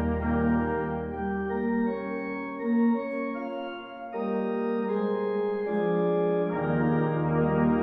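Organ playing sustained chords in a slow passage; the deep bass notes drop out about a second in and come back near the end.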